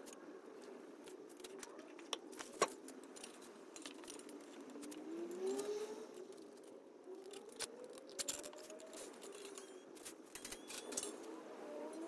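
Metal guitar strings on a 1986 Fender Squier Stratocaster being handled, with scattered faint clicks and rattles and a few sharper ticks. A string's pitch rises slowly twice as it is tuned up.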